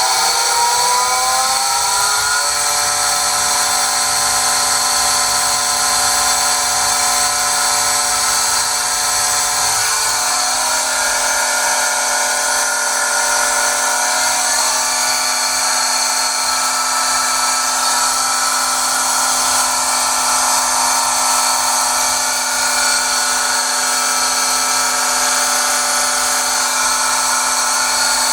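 Pentair SuperFlo VS 1.5 HP variable-speed pool pump running with a loud, high-pitched screeching whine. In the first couple of seconds the pitch rises as the motor speeds up, then it holds a steady, many-toned screech.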